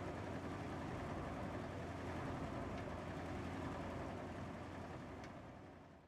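Blower of a pneumatic pipe dryer for washed plastic flakes running steadily, a continuous machine hum with a rushing noise of air and flakes through the pipes and a few faint ticks. It fades out in the last second or so.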